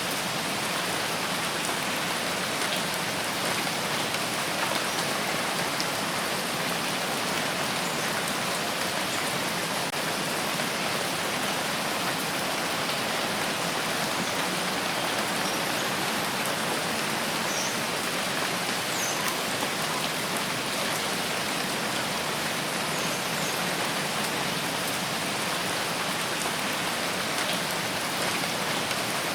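Steady rainfall, a constant even hiss of rain falling on a surface, with faint scattered droplet ticks.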